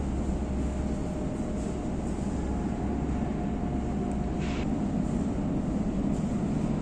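Steady low rumble echoing through an underground metro station hall. A faint steady tone sounds for a couple of seconds in the middle, and a short hiss comes about four and a half seconds in.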